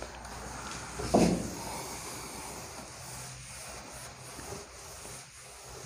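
Cloth duster rubbing across a whiteboard, a soft swishing as the board is wiped clean, with one short louder sound about a second in.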